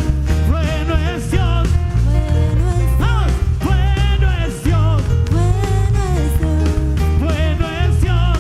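Live tropical-style band music: a loud, heavy bass line under a wavering, vibrato-laden melody.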